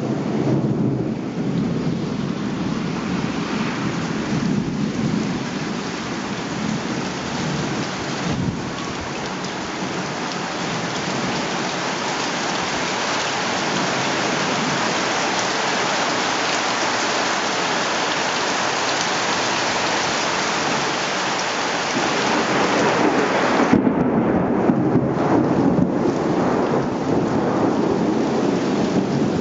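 Thunderstorm: rain pouring down steadily, with rolling thunder rumbling in the first few seconds and again, louder, in the last few seconds.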